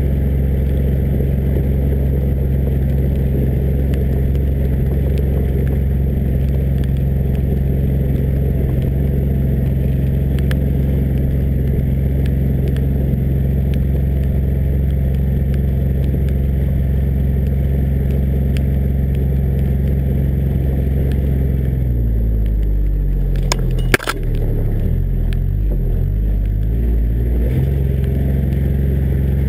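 John Deere Gator 855D's three-cylinder diesel engine running steadily as the vehicle drives, heard from beside the front-left wheel. About three-quarters through, the engine note drops and wavers for a few seconds, with one sharp knock, then settles back to its steady pitch.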